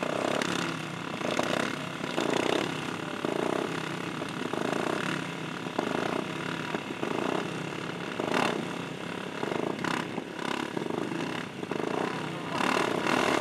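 Several racing ride-on lawnmower engines running together, their revs rising and falling unevenly every second or so.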